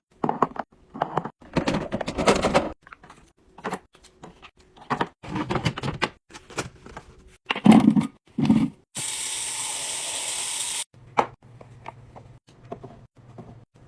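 Fridge being restocked: containers, bottles and packages knocked, set down and slid into place, a string of short clunks and rattles. A steady hiss lasting about two seconds comes a little past the middle.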